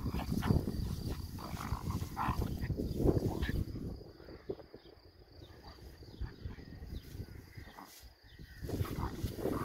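Two puppies, a Tosa Inu mix and a small black pup, growling as they play-fight. The growling is quieter for a few seconds in the middle and picks up again near the end.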